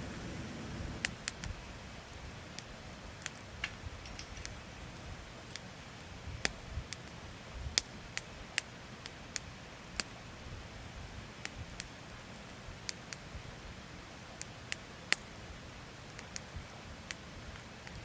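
Wood campfire crackling: irregular sharp snaps and pops, sometimes several close together, over a faint steady hiss, with one louder snap near the end.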